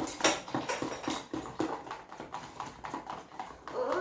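Slime being stirred in a bowl with a utensil: a quick, irregular run of clicks and taps, with a short sliding squeak near the end.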